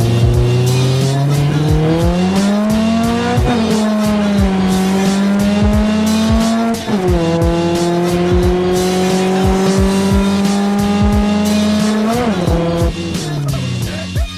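Swapped Honda ZC four-cylinder in a third-gen Civic pulling under load, its engine note climbing and then dropping sharply at about three gear changes. A music beat runs underneath.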